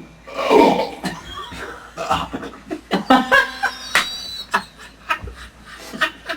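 People laughing in short, irregular snickers and chuckles.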